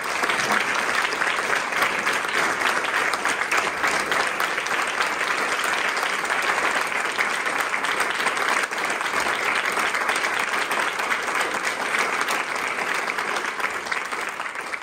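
A small group of people applauding, steady and sustained, tapering off slightly near the end.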